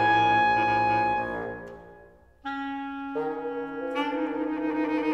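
Clarinet, bass clarinet and bassoon trio playing sustained chords. One held chord dies away to near silence about two seconds in, then the instruments come back in one after another, building a new held chord.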